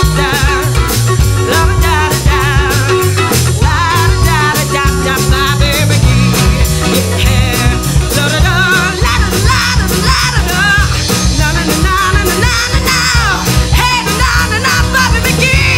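Live acoustic folk-rock band playing: guitars and bass over a steady beat, with a wavering lead melody on top.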